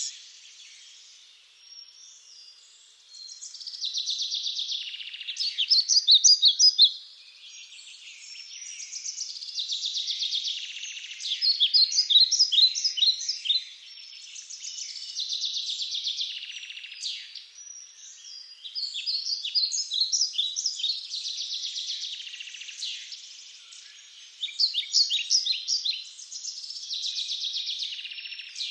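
Songbirds singing: short phrases of rapid, high chirping notes, one after another every few seconds.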